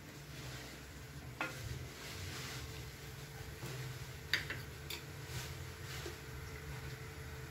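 Gas stove burner running under an empty small iron tempering pan, a low steady noise, with a few light clicks. The loudest click comes a little past the middle.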